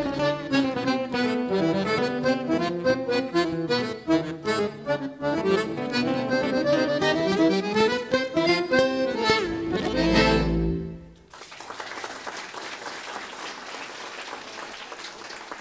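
Accordion, guitar and double bass trio playing a musette number, closing with a quick rising run into a final chord with a deep bass note about ten seconds in. The music stops, and audience applause follows.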